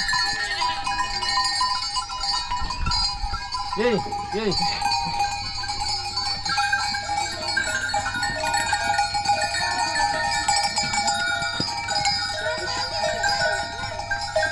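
Herd of goats crowded in a pen: steady jangling of bells with goats bleating now and then, two bleats close together about four seconds in.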